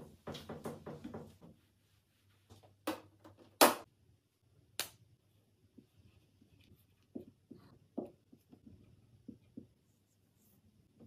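A microfibre cloth rubbing across a fridge door, then three sharp clicks, the loudest a few seconds in. Near the end a marker pen writes in short squeaky strokes on an acrylic board.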